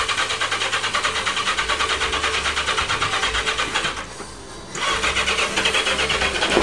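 Motorcycle engine of a dune buggy being cranked on its electric starter for a cold start after priming, turning over in rapid pulses without catching; the cranking stops about four seconds in and starts again just under a second later.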